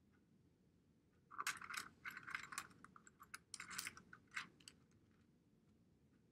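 Small plastic algebra tiles clicking and clattering against each other: a run of rattles lasting about three seconds, starting a little over a second in.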